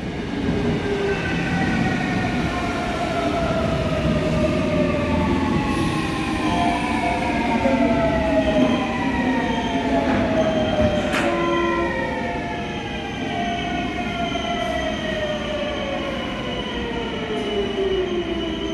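Seoul Subway Line 8 electric train pulling out of the station, its traction motors whining in several layered tones that glide steadily down in pitch over the rumble of wheels on rail.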